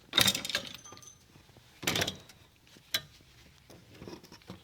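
Hand tools being handled: a few separate clinks and knocks, the loudest just after the start and about two seconds in, with a sharp click near three seconds.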